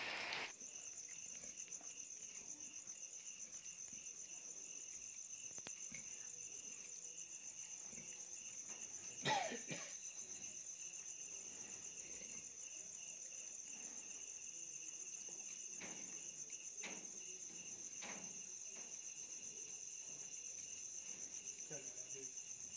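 Crickets chirring steadily in a fast, even pulsing trill. There is one brief louder sound about nine seconds in.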